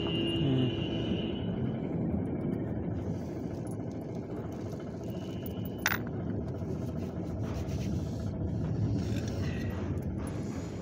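Steady rumbling background noise with one sharp click about six seconds in.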